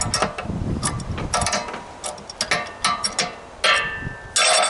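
Hand tools working the metal fittings of an air compressor being stripped for scrap: a run of sharp metallic clicks and clanks with brief ringing, the loudest clatter near the end.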